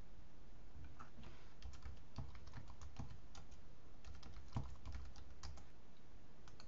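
Typing on a computer keyboard: an irregular run of quiet keystrokes, from about a second in until shortly before the end.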